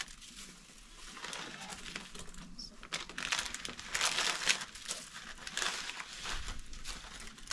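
Irregular rustling and crinkling, louder in patches through the middle.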